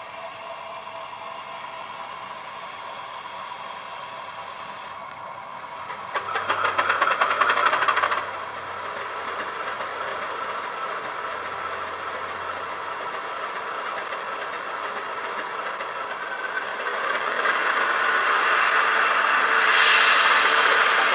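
Sound-decoder recording of a BR class 31 diesel locomotive's engine playing through the small speaker of an OO gauge model. The engine idles steadily, a loud noise lasting about two seconds comes in about six seconds in, and from about seventeen seconds the engine sound builds louder as the loco powers up.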